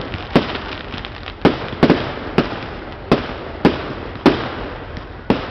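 Fireworks display: aerial shells bursting one after another, about eight sharp bangs in five seconds, each trailing off briefly.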